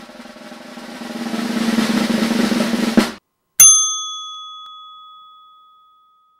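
Intro jingle: a snare drum roll that swells in loudness and ends on a hit about three seconds in, then a single bright chime-like ding that rings and fades away over a couple of seconds.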